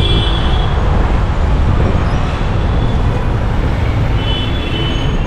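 Steady low rumble of road traffic and riding noise in congested city traffic, with two brief high tones, one near the start and one about four seconds in.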